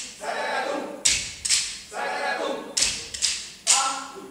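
Unaccompanied voices singing in short phrases, cut by sharp percussive hits such as claps or stamps several times, each followed by a voiced sound that fades.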